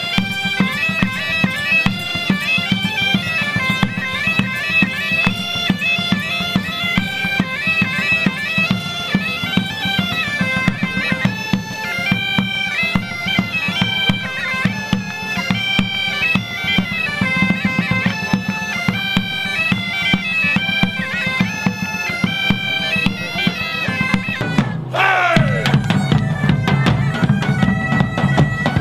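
Several bagpipes playing a lively tune in unison over steady drones, with drum beats beneath. Near the end the music breaks off briefly and a new bagpipe tune starts, with a short sliding pipe note as it comes in.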